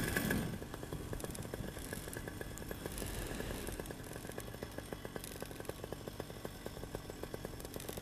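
Paramotor's two-stroke engine running at idle, a fast even chugging beneath a steady rush of wind.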